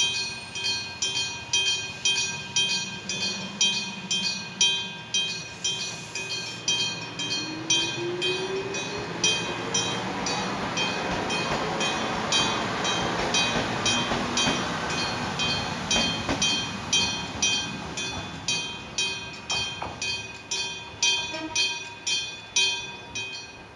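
Struck-bell level-crossing warning bell ringing, about two strokes a second, stopping just before the end. Through the middle a Fuji Kyuko 1000-series electric train pulls away, with a rising motor whine and a rumble of wheels.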